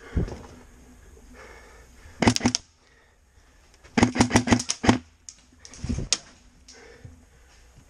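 Airsoft gun firing in quick bursts of sharp cracks: about three shots some two seconds in, then a longer burst of about seven. A heavier thump follows about six seconds in.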